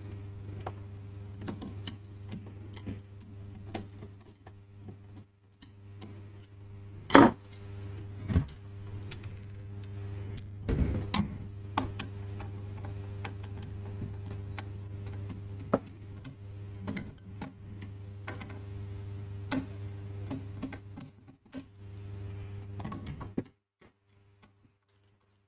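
Small clicks, taps and rattles of a screwdriver and small screws as the front panel of a car radio is unscrewed and taken apart, over a steady low hum. One sharp knock stands out about seven seconds in.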